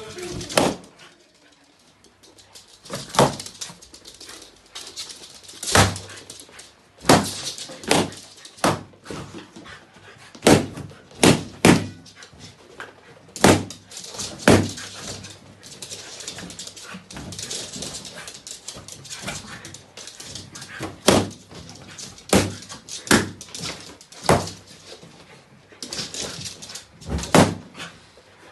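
West Highland White Terriers popping balloons: about twenty sharp bangs at irregular intervals, some in quick pairs, with softer rustling between them.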